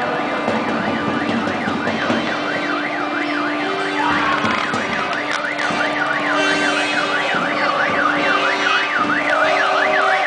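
Electronic siren wailing in fast up-and-down sweeps, about three a second, growing louder about four seconds in. Under it a crowd in the street and steady low horn notes that start and stop.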